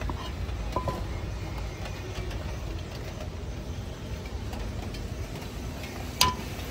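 A steady low rumble with a couple of metal knocks from cooking utensils. Near the end comes one sharp, ringing clang of metal on the steel wok.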